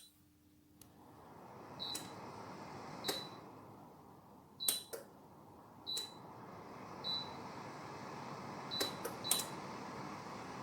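Dreo wall heater's touch buttons beeping as they are pressed, about eight short high beeps at uneven intervals. Under them the heater's fan starts about a second in and swells into a steady rush of air.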